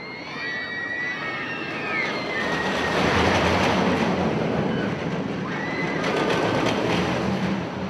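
Wooden roller coaster train climbing its chain lift hill: a steady clattering rumble of the lift chain and cars, growing louder about three seconds in, with high squeals in the first couple of seconds and again briefly near the end.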